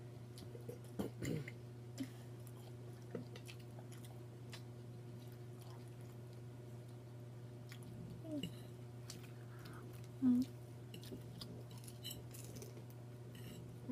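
People chewing food, with scattered soft mouth clicks and smacks over a steady low hum. There are two brief murmurs from a voice, about eight and ten seconds in.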